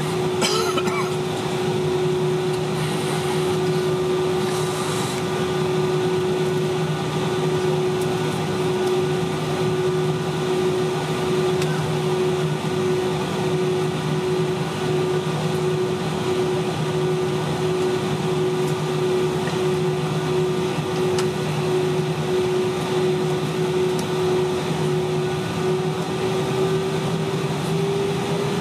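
Airbus A320-232's IAE V2500 engine idling as the aircraft taxis, heard inside the cabin: a steady whine over a hum and the rush of cabin air. The whine starts to rise slightly in pitch near the end.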